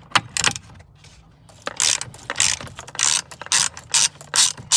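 Ratchet wrench clicking as it loosens the steering wheel retaining nut: two short strokes at the start, then after a pause a steady run of quick strokes, about four a second, from about a second and a half in.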